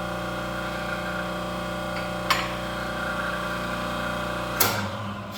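Motor-driven pump of a home-built hydraulic forging press running with a steady hum, with a light metallic clink about two seconds in. Near the end the motor shuts off with a sharp clank of steel.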